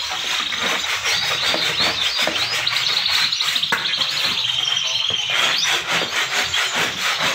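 Many caged male canaries singing at once: a dense chorus of fast, high trills and chirps.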